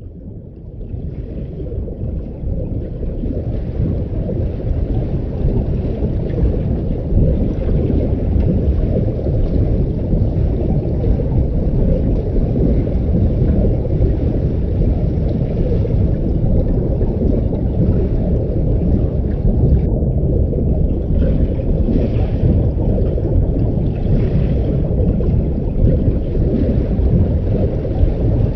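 Underwater ambience sound effect: a steady low rumble of water as heard below the surface, swelling in over the first few seconds and then holding even.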